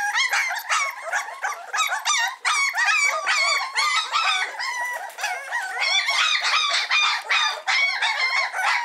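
A litter of Cane Corso puppies crying together, many high-pitched whines and yelps overlapping without a break.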